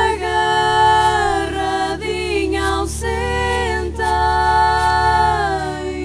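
Women's voices singing a traditional folk song in harmony, holding long notes that slide between pitches, over a steady low drone.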